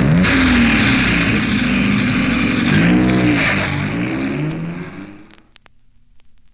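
Race car engine sound effect on the tail of a 1960s dragster-style instrumental record: an engine revving up and down under heavy noise, fading out about five seconds in, followed by a few faint clicks.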